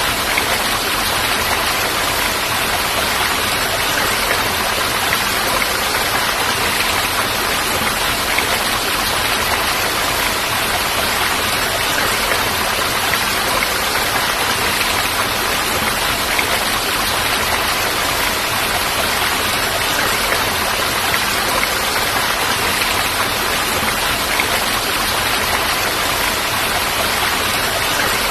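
Steady, unbroken rush of falling water, as from a waterfall.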